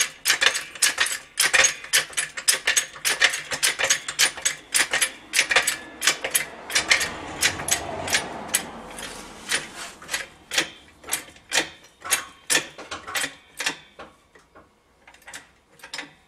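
Hydraulic floor jack being pumped to raise an outboard motor's lower unit by its skeg: a long run of sharp metallic clicks, about two to three a second, that thin out and fade near the end.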